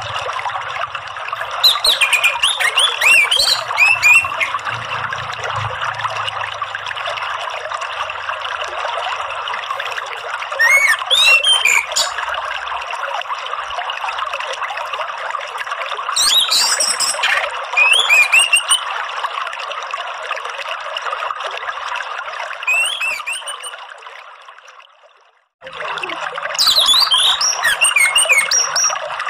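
Steady running, trickling water with short bursts of high songbird chirps and whistles every few seconds, about five times. Near the end the water fades away and then cuts back in suddenly.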